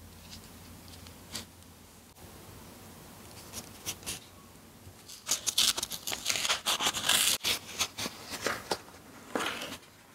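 Small paperboard box being opened and unwrapped by hand. A few soft clicks come first, then about halfway through a busy run of crackling, tearing paper sounds, with a few more rustles near the end.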